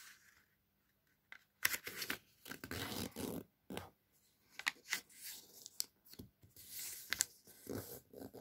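A square sheet of origami paper rustling and crinkling in short spells as it is folded in half and the crease pressed flat, with a few sharp crackles.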